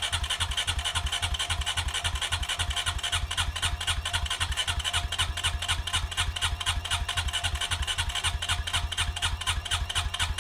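Honda Rancher ATV's electric starter cranking its single-cylinder engine at an even beat of about six pulses a second, without catching. The quad was just sunk and is pushing water out of its exhaust.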